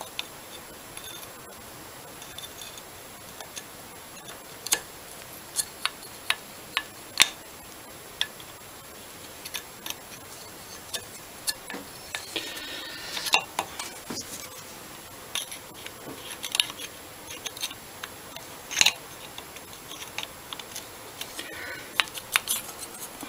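Scattered sharp metallic clicks and taps of small hand tools, a flat blade and pliers, working on an old Amal Monoblock carburettor as it is dismantled, with a short stretch of scraping about twelve seconds in.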